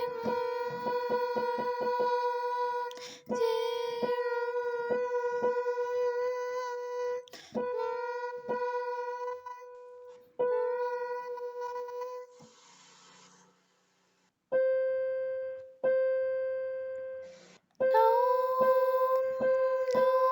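A woman's singing voice holding a long sustained note at about B4 in several stretches, scooping slightly up into each onset, as pitch-matching practice. Near the middle it briefly sits a little higher, toward C. Regular light ticks run beneath the notes.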